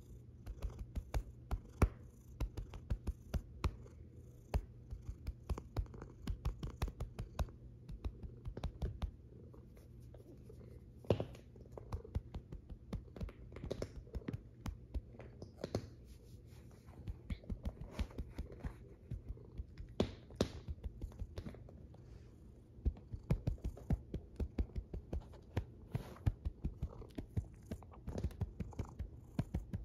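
Fingers scratching and rubbing a long-haired cat's fur close to the microphone: rapid crackling scratches in runs with short pauses, and the cat's low purr underneath.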